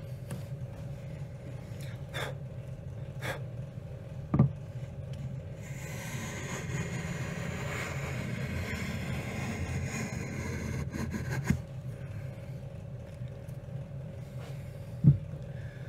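A homemade steel-and-copper hand plane with a laminated iron shaving the edge of a beech board: a continuous shaving hiss for about five seconds in the middle. Before and after it come a few sharp knocks and clicks from the plane being handled, over a steady low hum.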